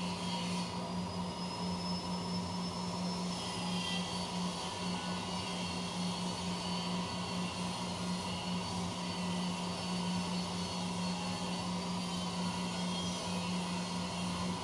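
CNC machine running: a steady low hum with a high whine that dips slightly in pitch about four seconds in.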